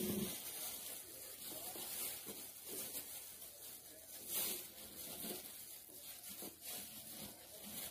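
Faint rustling and rubbing against a steady hiss, with a brief louder rustle about four and a half seconds in.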